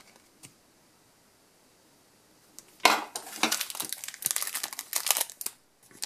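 Foil trading-card booster pack crinkling as it is picked up and handled, starting about three seconds in after a quiet stretch.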